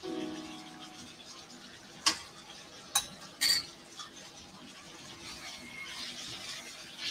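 Spatula stirring and scraping chicken around a wok over a soft sizzle, with a few sharp clacks of the spatula against the pan between about two and four seconds in.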